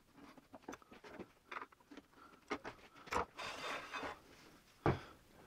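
Hand handling of a wooden sacrificial fence on an aluminium miter gauge fence: scattered light clicks and rubbing as it is slid off, with a sharper knock about three seconds in and another near the end.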